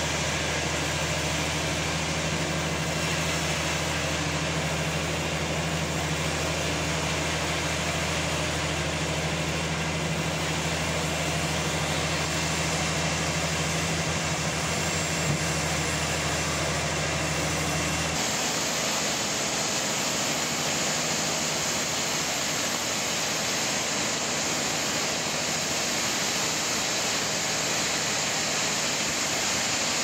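Sawmill running steadily while sawing a large trembesi (rain tree) log, a constant low hum under a hiss. About eighteen seconds in the low hum drops away and the hiss carries on.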